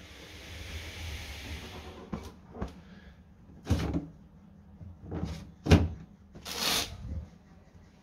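Plastic lint filter of a Hoover tumble dryer being pulled out of its slot in the door rim and handled: rustling at first, then a series of plastic clacks and knocks, the loudest about three quarters of the way through, followed by a short rustle.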